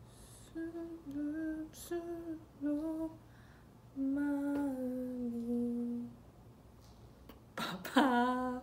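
A woman humming a tune with her mouth closed, in short phrases of held notes with pauses between them. Near the end comes one short, louder vocal outburst.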